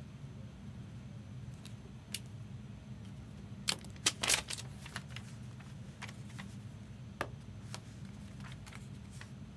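Trading cards in plastic holders and a paper slip being handled on a tabletop: a quick cluster of clicks and rustles about four seconds in, then a few scattered light clicks, over a steady low hum.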